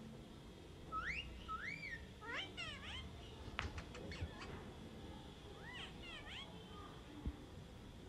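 Indian ringneck parakeet's soft whistled calls: two rising, swooping whistles about a second in, then bursts of quick chirps, and again near six seconds. A few sharp clicks and a short knock come between them.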